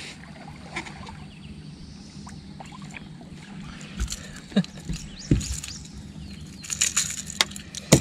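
A hooked bass being lifted by hand from the water onto a fishing boat: a few sharp knocks and clicks, grouped about four to five seconds in and again near the end, over a steady low hum.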